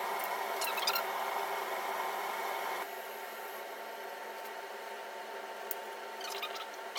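Faint clicks and scrapes of a screwdriver turning small screws into a carburettor, a cluster about a second in and another near the end, over a steady background hum that drops a little about three seconds in.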